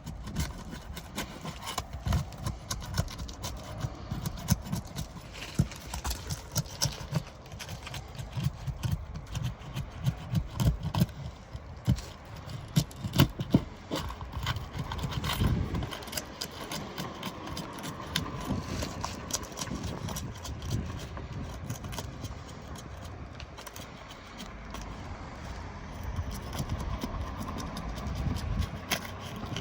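Irregular knocking, tapping and scraping as brittle roof shingles are pried up and unsealed from the roof, with dull low thumps among sharper clicks.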